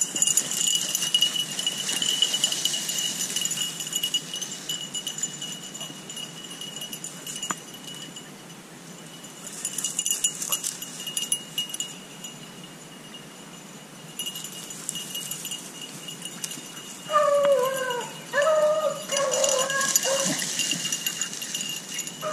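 Beagles baying on a rabbit's scent line: a run of drawn-out bawls from about three quarters of the way in. Before that, a thin steady high-pitched tone and a hiss that comes and goes.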